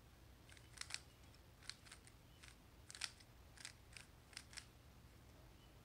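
A stickerless 3x3 speed cube being turned by hand through a quick sequence of layer turns, each turn giving a short sharp plastic click, about a dozen clicks in all, stopping shortly before the end.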